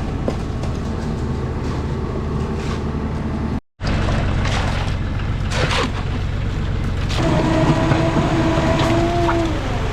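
Concrete truck running with a steady low engine drone, cutting out for a moment a little over a third of the way in. About seven seconds in, a held whine joins it and dips in pitch as it stops near the end.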